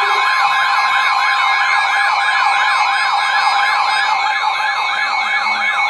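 Emergency alert tone for a Special Marine Warning: an electronic siren-like sweep rising and falling about three times a second, layered over steady tones.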